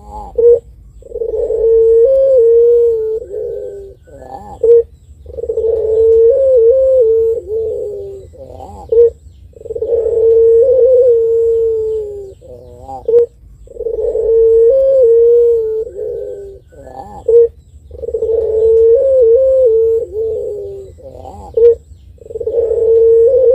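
Puter pelung, a long-voiced ringneck dove, cooing over and over. About every four seconds it gives a short note followed by a long drawn-out coo of about three seconds.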